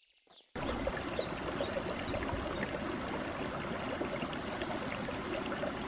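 Small mountain creek running over rocks: a steady rush and trickle of water that comes in suddenly about half a second in.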